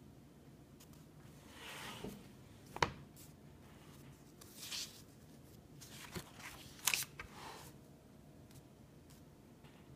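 Pages of a spiral-bound sketchbook being turned and handled: a few soft paper swishes and some sharp clicks, the loudest about three and seven seconds in.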